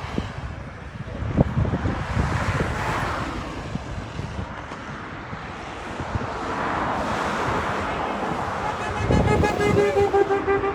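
Wind buffeting the microphone over broad rushing surges of noise, from passing cars or surf. About nine seconds in, a pulsing, pitched tone with several overtones comes in and lasts to the end.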